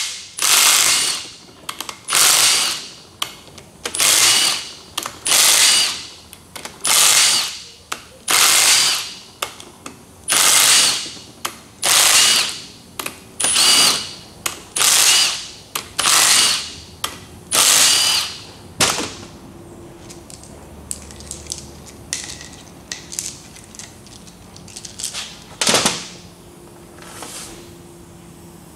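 A cordless power driver running in about a dozen short bursts, roughly one every 0.7 seconds, backing the ring gear bolts out of a differential carrier. After about two-thirds of the way through it stops, leaving faint clicks of parts being handled and one sharp knock near the end.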